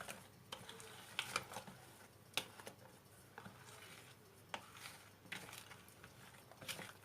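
Faint, irregular clicks and scrapes of a stirring utensil against a bowl as thick chocolate batter is mixed, the batter stiffening as the glaze is worked in.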